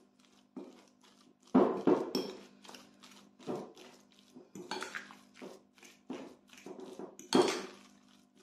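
Metal fork scraping and clinking against a glass bowl as it mashes ricotta with powdered sugar, in irregular strokes. The loudest knocks come at about one and a half to two seconds in and again near the end.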